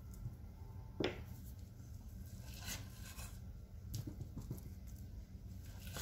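Metal spoons scraping thick, sticky date-roll candy off each other and out of a stainless pot: soft scrapes and a few light clinks, the loudest a quick scrape falling in pitch about a second in.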